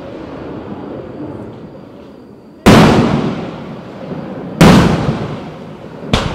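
Fireworks shells bursting: three loud booms about two seconds apart, the first two each trailing off over a second or more, the last shorter and sharper near the end.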